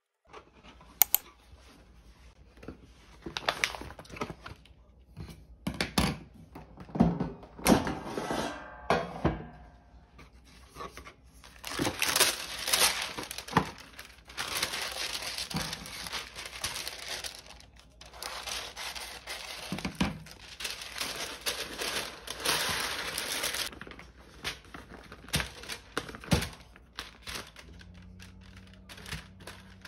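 Parchment paper being pulled off a roll, torn and crinkled while it is pressed into an air fryer basket, with long rustling stretches between scattered knocks and thunks of handling.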